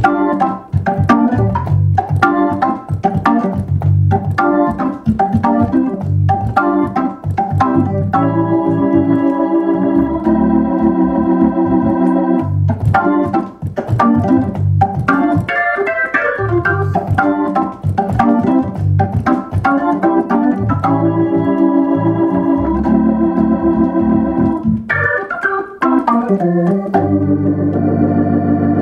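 Hammond organ playing a funk groove: short, clipped chords alternating with held chords over a moving bass line, with sharp attacks on the notes. It ends on a held chord near the end.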